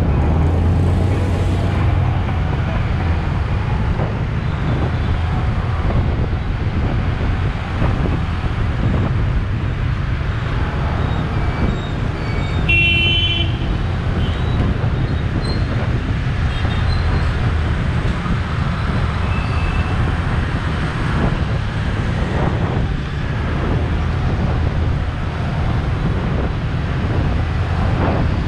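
Steady low rumble of wind buffeting and engine noise from a moving motorbike in dense city traffic, with a short horn beep about halfway through.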